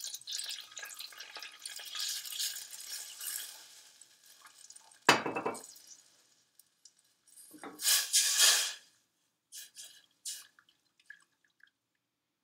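White wine poured into a small saucepan of hot butter and olive oil, crackling and spitting for about four seconds before dying down. A sharp knock follows about five seconds in, and a louder clatter around eight seconds in.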